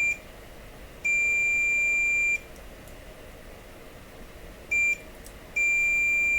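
Continuity tester beeping as a push-button switch is pressed and its contacts close: a steady high beep that cuts off just after the start, a longer beep about a second in, a short blip, then another long beep near the end. Silence between the beeps means the contacts are open.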